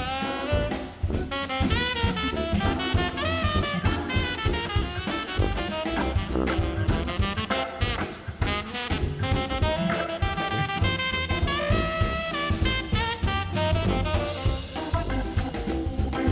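Live jazz tenor saxophone solo, fast melodic runs and bent notes over a swinging drum kit, with the sax phrases thinning out near the end.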